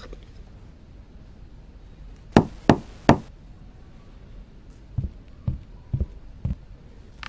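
Three sharp knocks on a wooden door in quick succession, then four softer, lower thuds about half a second apart, footsteps crossing a wooden floor toward the door.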